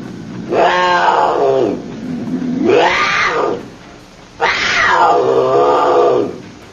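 An animal calling three times: long drawn-out pitched calls, each sliding down in pitch.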